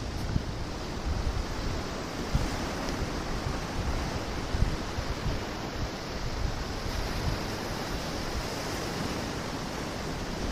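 Ocean surf washing steadily, with wind gusting on the microphone now and then.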